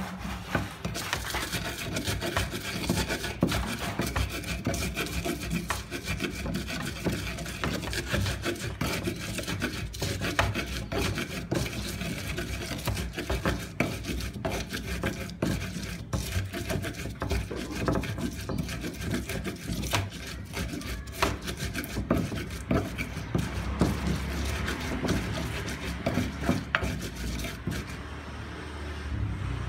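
A wooden pestle (ulekan) grinding and crushing fresh red chilies and salt in an earthenware cobek: quick rubbing, scraping strokes against the clay with many sharp knocks. The strokes ease off near the end as the sambal is ground down.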